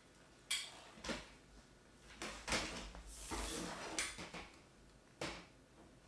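Hard plastic parts of a Maircle S3-Mate cordless stick vacuum knocking and clicking as the extension wand is pushed into the main body, with a longer scraping slide about halfway through. The vacuum is not running.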